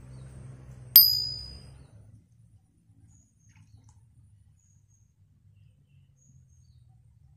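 A single bright bell ding, the notification-bell sound effect of a subscribe-reminder animation, struck about a second in and ringing away over about a second. After it only a faint low rumble and a few faint high chirps remain.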